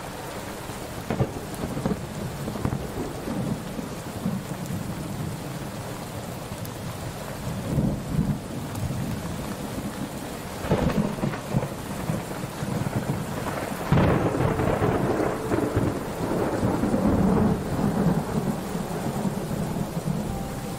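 Steady rain with rolling thunder: low rumbles build a few times, and a sharp thunderclap about two-thirds of the way through is the loudest moment.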